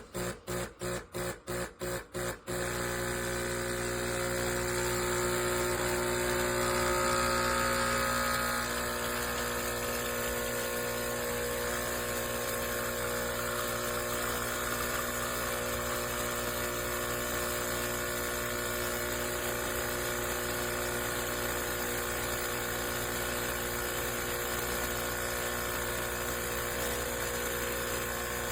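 HiBREW H10B espresso machine's pump buzzing as it pulls an espresso shot. For the first couple of seconds it pulses on and off about three times a second, then it runs as a steady buzz for the rest of the shot.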